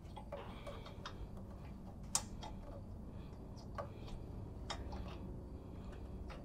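Faint, irregular light clicks and ticks of a new spark plug being turned in by hand into the mower engine's cylinder head, with one sharper click about two seconds in.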